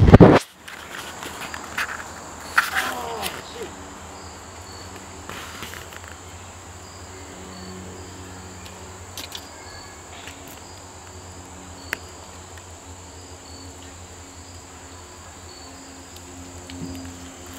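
Insects trilling steadily and high-pitched in the woods over a low hum. A loud knock comes right at the start, followed by a few smaller knocks and rustles in the first few seconds.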